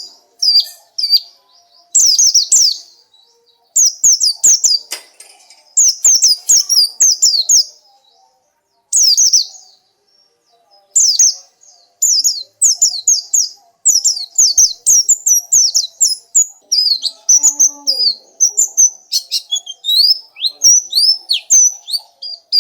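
White-eye (pleci) singing: fast runs of high, sharply falling chirps in bursts of a second or two, separated by short pauses, with a longer break of a couple of seconds near the middle.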